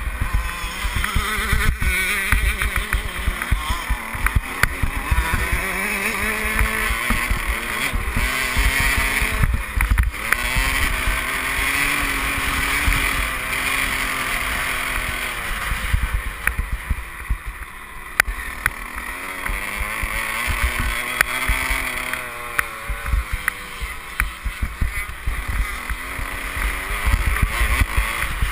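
Motocross bike engine revving hard as the bike is ridden round the track, its pitch repeatedly climbing and dropping with the throttle and gear changes. Heavy wind rumble on the helmet-mounted camera, with scattered knocks from the bike over the rough track.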